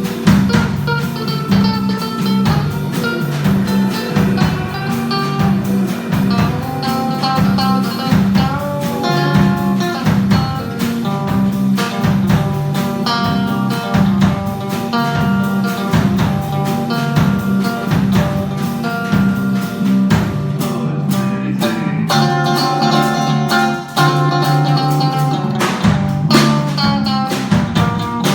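Blues-style guitar music with a steady beat over a bass line, played without vocals, with a brief break a little before the end.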